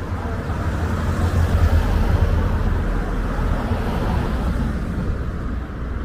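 Road traffic: a vehicle passing close by, its low rumble and road noise swelling over the first two seconds and then easing off.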